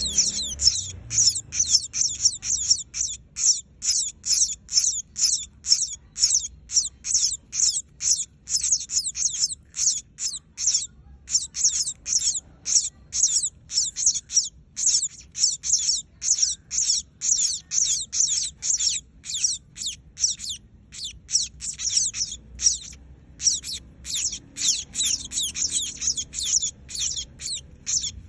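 A young emprit kaji munia calling insistently, a fast run of short high peeps at about three a second, with two short breaks.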